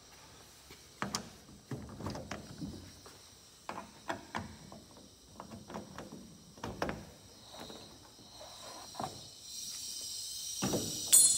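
Sheet-metal enclosure panel of a rotary screw air compressor being unlocked and lifted off: a series of scattered clicks and knocks. From about three-quarters of the way in, a steady high hiss comes in, and near the end there is one sharp, loud metallic click that rings briefly.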